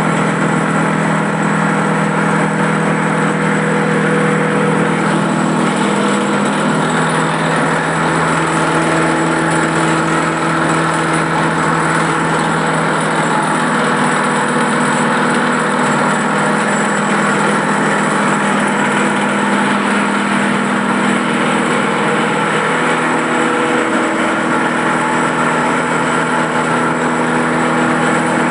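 Stainless steel impact pulverizer running: a steady, loud machine hum under a dense whirring rush, with a thin high whine, its hum stepping to a new pitch a few times.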